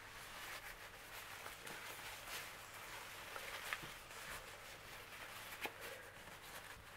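Soft rustling and crinkling of a paper towel being handled and wiped, with a few faint clicks.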